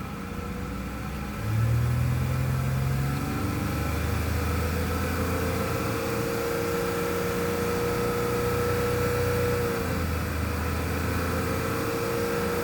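Honda Accord V6 engine revved in neutral and held at raised revs, with a steady hum sounding over the engine note. The revs come up about a second and a half in, dip briefly near the end and come back up. The owner does not know what causes the hum, which comes with a slight vibration in the gas pedal.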